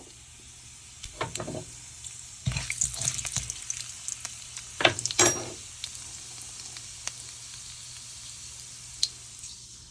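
Fenugreek, fennel and mustard seeds sizzling in hot oil as they are tempered, with a few sharp knocks of a utensil against the pan; the sizzling swells about two and a half seconds in, then settles to a steady hiss.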